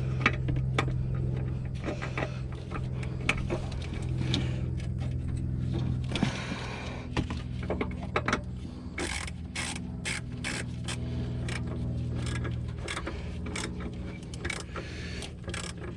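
Ratchet wrench clicking in short, irregular runs as a nut is tightened on the car horn's mounting bracket, the clicks thickest in the second half. A steady low hum runs underneath and fades about three-quarters of the way through.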